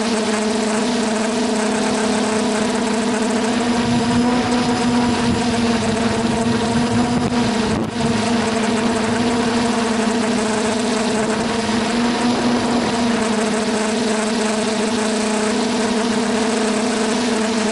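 Quadcopter's four brushless motors spinning 9-inch propellers, heard through the onboard action camera as a steady hum at a constant pitch over a thick rush of air, with a brief click and dip about eight seconds in.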